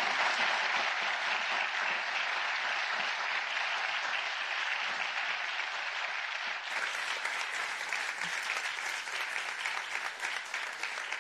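A large seated audience applauding, a steady dense sound of many hands clapping.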